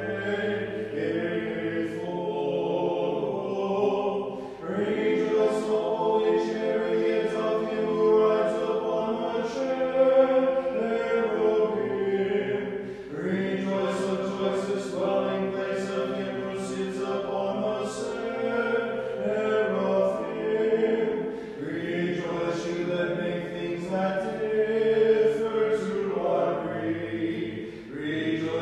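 Several voices singing unaccompanied Orthodox liturgical chant in harmony, in sustained phrases of several seconds separated by short breaths.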